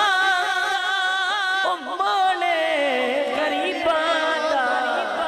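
A male naat singer's voice, amplified through a handheld microphone, singing Punjabi devotional verse with no words spoken. He holds a long wavering note, breaks briefly, then slides downward before settling on another held note.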